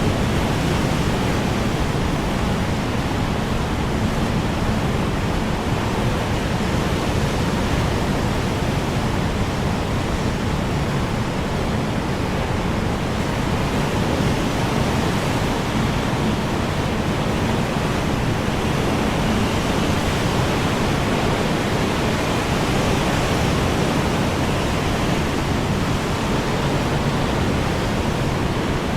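Strong wind blowing steadily as a dense, even rush of noise, with no marked gusts or lulls.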